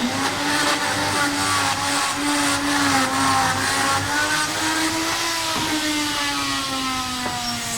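A machine motor running with a steady pitched hum that slides slowly lower in pitch over the last few seconds.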